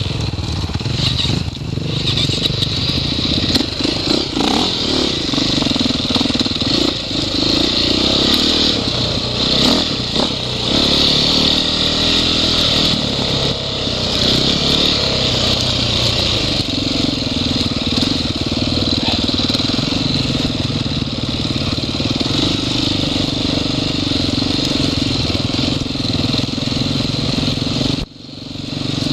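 KTM enduro motorcycle engine running and revving up and down while riding over rough trail. The sound drops out abruptly about a second before the end, then returns.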